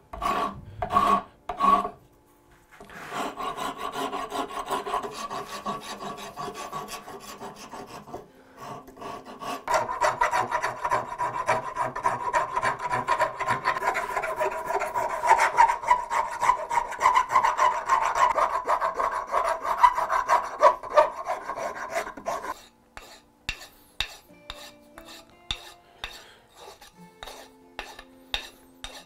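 Hand file or rasp stroked back and forth across English oak handle scales, shaping the wood: a few separate strokes, then steady rubbing, then faster, louder strokes. About three quarters of the way through the stroking stops and a run of light clicks and taps follows.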